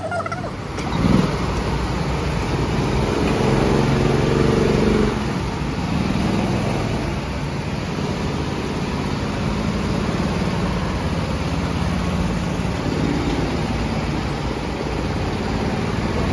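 Several go-kart engines running together in a pit lane, idling with a rise in revs around three to five seconds in. A short knock about a second in.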